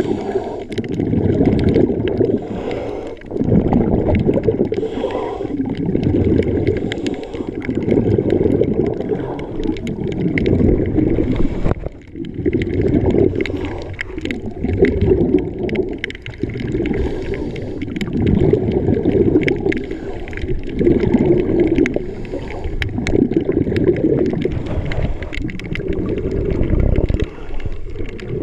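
Underwater water and bubble noise: a low rumbling gurgle that swells and fades about every two to three seconds.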